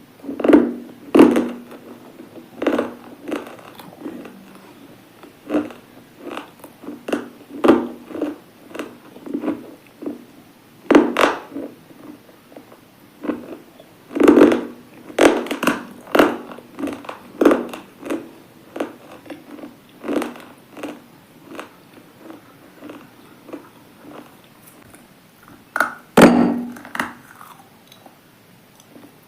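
A person biting and chewing hard, brittle pieces close to the microphone: sharp crunches at an irregular pace, a few bites much louder than the rest.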